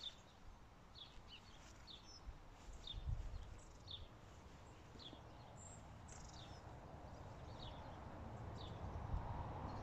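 A small bird chirping, short high calls repeated about once a second, over a low steady rumble that swells a little near the end.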